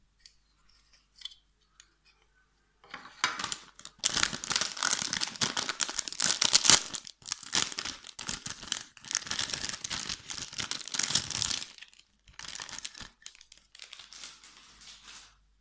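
Clear plastic packaging crinkling and being torn open by hand. The rustling starts about three seconds in and runs with a few short breaks until near the end.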